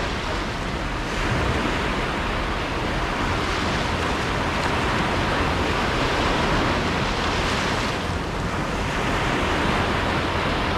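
Small sea waves breaking and washing up onto a beach in a steady, continuous wash of surf, with wind rumbling on the microphone.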